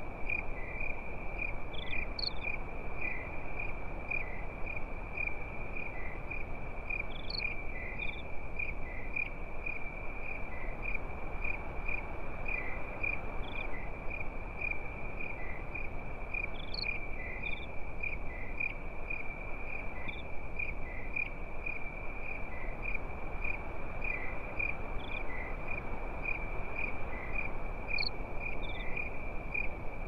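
A continuous shrill insect trill that pulses steadily without a break, with a few brief higher chirps every few seconds over a soft background hiss.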